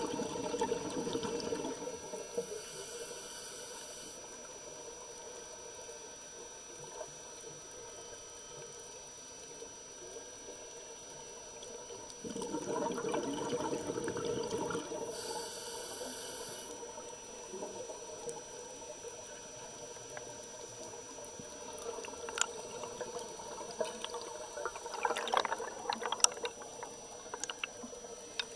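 Scuba diver's exhaled bubbles gurgling out of a regulator past an underwater camera, in bursts of about two seconds roughly twelve seconds apart, with a faint steady hum in between.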